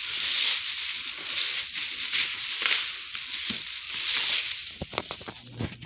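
Fireworks packaging being handled: rustling and crinkling, with a few sharp clicks or taps near the end.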